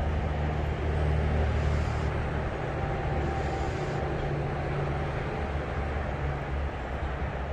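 Lawn mower engine running steadily with a low drone.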